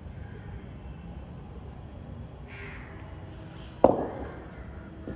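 A short harsh call, then about a second later a single sharp knock of a cricket bat that rings briefly in the hall, over a steady low hum.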